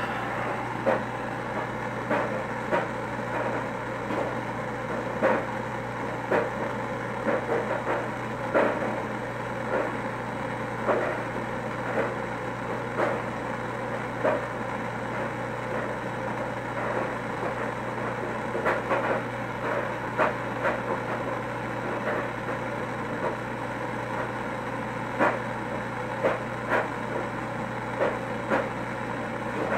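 Handheld gas torch burning steadily with its flame on a glass rod, a continuous even rush of flame noise. Short sharp clicks come through it irregularly, about once a second.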